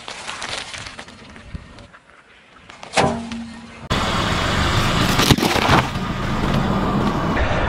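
A car tire slowly rolls over and squashes a cream-filled pastry with faint crushing, and there is a sharp knock about three seconds in. Then, from about four seconds, a car's engine and tire noise grow loud as the tire rolls onto a whole pumpkin, which cracks and bursts open with loud splitting around five seconds in.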